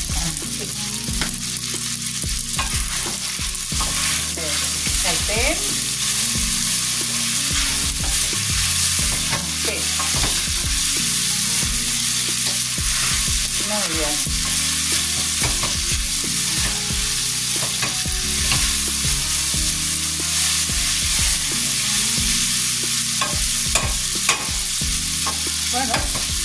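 Olive oil sizzling steadily in frying pans of clams and halved cherry tomatoes, while drained spaghetti is stirred and tossed in a pot with a utensil, with irregular scrapes and clicks against the pot.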